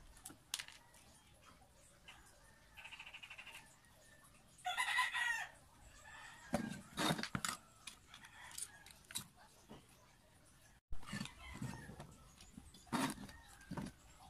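A rooster crows once about five seconds in. Sharp knocks and rattles come from a disassembled water pump motor's metal housing, terminal cover and wires being handled.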